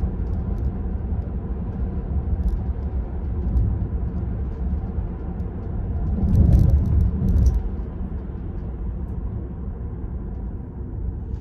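Road and tyre noise heard inside the cabin of a Tesla Model 3 Performance, an electric car with no engine note, driving at about 30–40 mph. It is a steady low rumble that swells briefly a little past midway.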